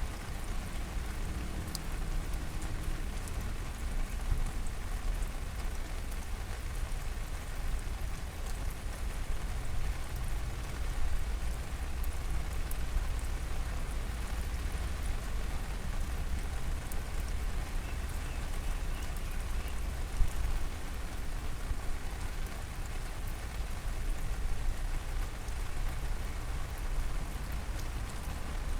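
Steady rain falling, an even hiss with scattered sharp drop ticks over a constant low rumble. One louder tap stands out about twenty seconds in.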